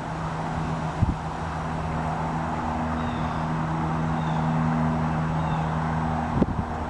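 Steady engine hum under a rushing noise that swells gently and eases again, with a few faint bird chirps in the middle.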